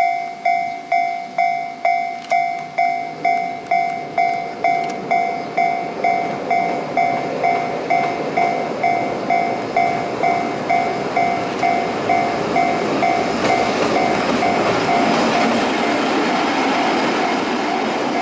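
Japanese railroad crossing bell ringing, a two-tone chime repeated about twice a second. Under it, the EF81 electric locomotive passes with a rumble of wheels on the rails that grows louder through the second half.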